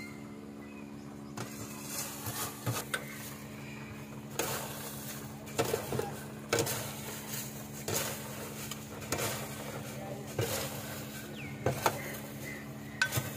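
Popcorn being scooped off a metal popcorn-machine tray and tipped into a plastic bag: repeated scraping, clattering and rustling strokes, roughly one a second, over a steady machine hum.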